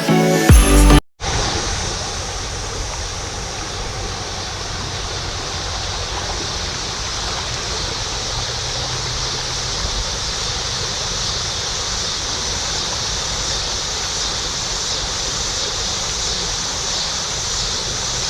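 Steady rushing of river water. The tail of a piece of music cuts off about a second in.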